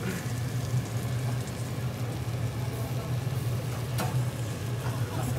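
Restaurant room noise: a steady low hum, with a single click about four seconds in.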